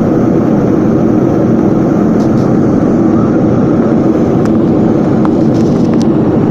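Airplane engines and rushing air during takeoff: a steady, loud roar, with a few faint clicks in the second half.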